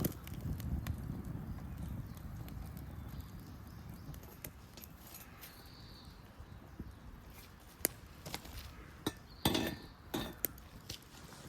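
A few sharp knocks and clicks from objects being handled, clustered about nine to ten seconds in, over a low rumble that fades away in the first two seconds.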